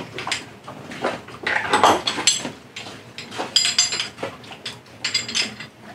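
Heavy stainless steel shackles clinking and rattling against each other while being handled and fitted onto a rope mooring bridle, in about four short spells of metallic clinks.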